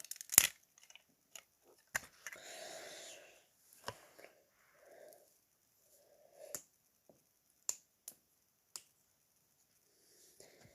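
Plastic Lego bricks clicking and tapping as pieces are handled and pressed together: a handful of sharp, separate clicks at uneven intervals, the loudest near the start, with a soft rustle around two to three seconds in.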